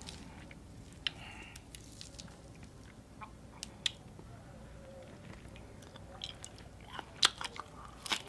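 Close-miked chewing and biting of crunchy papaya salad, with wet mouth clicks and crackles scattered through; the bites come thicker and louder near the end.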